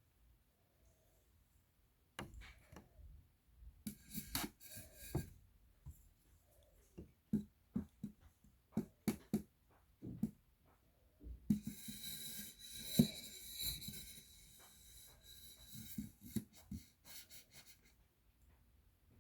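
A round plastic cake box and its plastic lid handled for ASMR: scattered light taps and clicks, with a longer crackling scrape of about two seconds a little past the middle.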